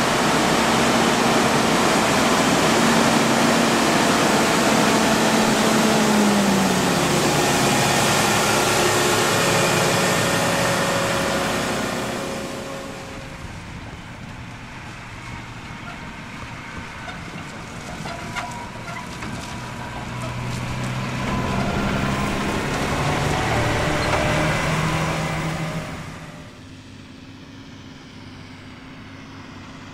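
Heavy diesel farm machinery working in a maize harvest: forage harvester and tractor engines running. A loud, dense machine noise fills the first twelve seconds, with an engine note dropping in pitch about seven seconds in. It then fades to quieter engine running, swells again and drops off suddenly near the end.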